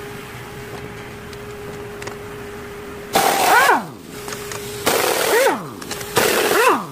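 Ingersoll Rand air impact wrench breaking loose 15 mm cylinder-head bolts on a 5.7 Hemi: three short bursts, each with a falling whine, about 3, 5 and 6 seconds in.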